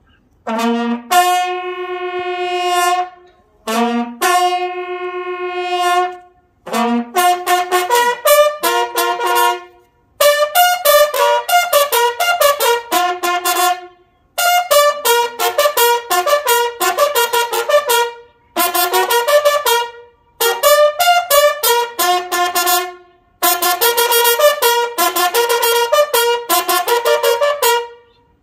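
A military bugle call played solo: a short low note rising to a long held note, twice, then quicker phrases of shorter notes with brief pauses between them.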